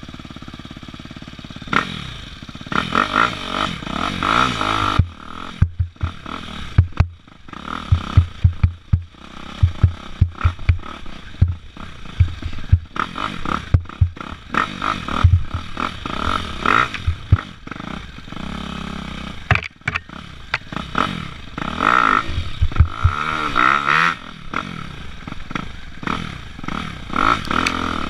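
Dirt bike engine revving up and down in repeated bursts, mixed with sharp clattering knocks and scraping, as the bike struggles in loose dirt.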